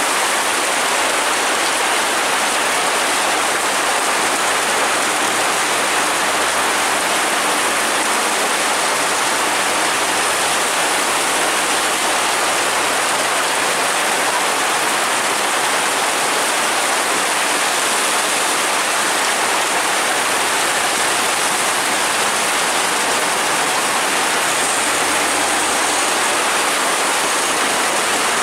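Heavy tropical downpour: a dense, steady hiss of rain falling on a wet road and running water.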